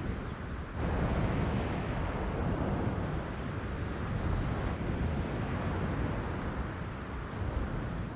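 Steady low rumbling outdoor ambience with a few faint, high chirps in the second half.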